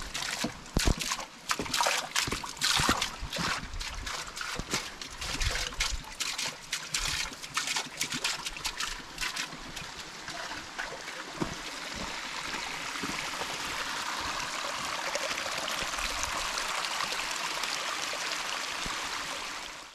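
Water trickling and splashing, with many irregular sharp splashes over the first half, then a steady run of water for the second half.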